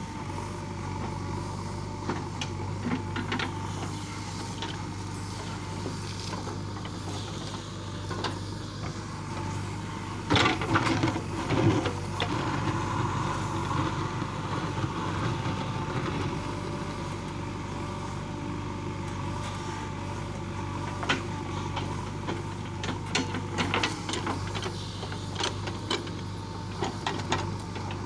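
JCB 3DX backhoe loader's diesel engine running steadily under load while the backhoe digs a trench. About ten seconds in there is a louder spell of clatter and scraping as the bucket works the soil, and a run of sharp knocks comes over the last several seconds.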